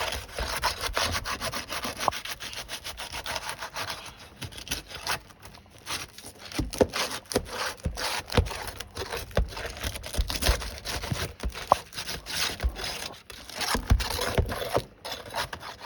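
Nail bar scraping and prying under stuck asphalt roof shingles, with continual rasping strokes and a few low knocks.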